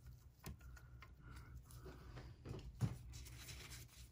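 Faint handling of a metal stitch-indicator plate being fitted onto a Singer 500J sewing machine's housing, with a few light clicks and one sharper click just under three seconds in.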